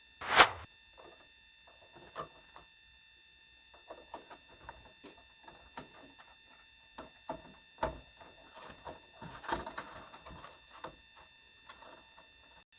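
Small plastic clicks and taps of a DDR3 RAM stick being handled and pressed into a desktop motherboard's memory slot, with a louder knock about half a second in and scattered clicks of the slot latches.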